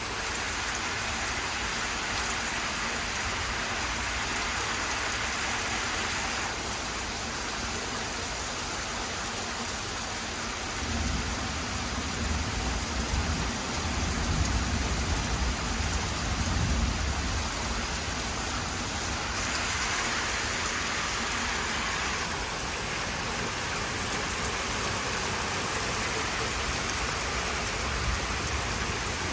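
Heavy rain pouring down steadily, with a low rumble of thunder rolling for several seconds near the middle.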